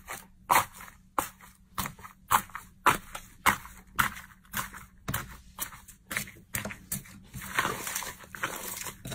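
Thick yellow slime being pressed and poked by hand, giving a crackling crunch with each press, a little under two presses a second. Near the end the presses run together into steady crackling.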